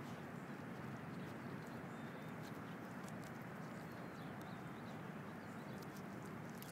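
Alaskan malamute chewing a rabbit carcass: irregular wet crunches and clicks of teeth on bone and meat, over a steady low background rumble.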